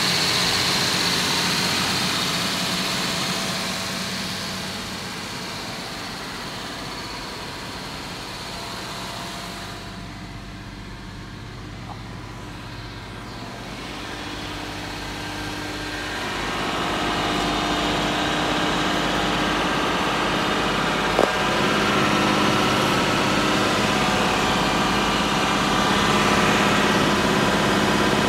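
Jaguar XJS 5.3-litre V12 idling steadily, running again on fresh fuel and new leads after a long lay-up. It fades for several seconds in the middle, then comes back louder from under the car, with one sharp click about 21 seconds in.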